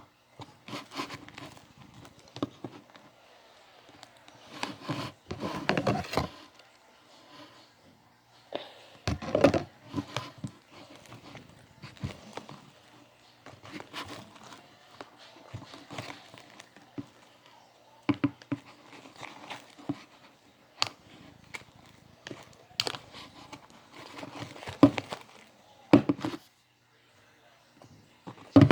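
Homemade slime of glue, shaving cream and lotion being stirred and worked as the activator sets it: irregular sticky crackling and squishing with a few sharp knocks.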